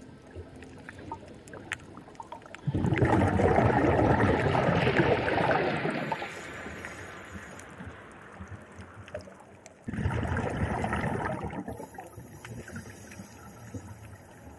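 Scuba diver exhaling through a regulator underwater, the bubbles rushing out in two bursts: a long one starting about three seconds in and fading over about three seconds, and a shorter one about ten seconds in, with a faint water hiss between.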